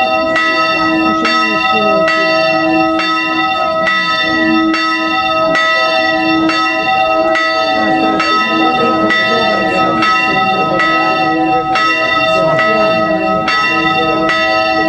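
A newly cast Grassmayr church bell is ringing solo, swung full circle so that its clapper strikes at a steady, even rhythm. Each stroke rings on under the next, and the bell's pitch holds steady.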